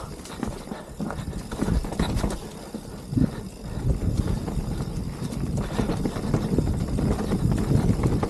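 Mountain bike clattering and rattling over a rough, rocky trail descent, with many quick knocks over a continuous low rumble.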